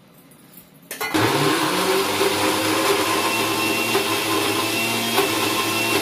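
Electric mixer grinder switched on about a second in. Its motor spins up and then runs steadily and loudly, grinding fried onion masala, roasted coconut powder and a little water into a wet paste.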